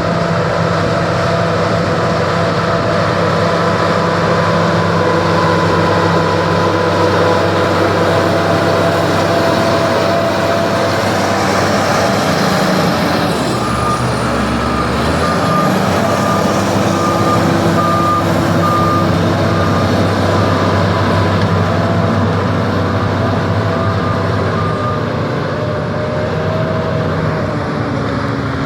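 SEM 816 bulldozer's diesel engine running steadily under work, its pitch shifting briefly about halfway through. Its reversing alarm beeps at an even pace for about ten seconds in the middle as the machine backs up.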